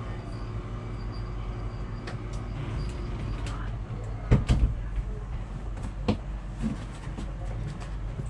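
A few hard knocks and clunks over a steady low hum. The loudest pair comes about four and a half seconds in, and another follows near six seconds.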